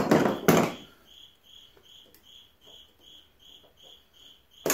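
A cricket chirping steadily, about two and a half short chirps a second at one pitch. Over it, a loud scraping rustle in the first second and a single sharp click near the end as hand tools work on the mower's seat cotter pin.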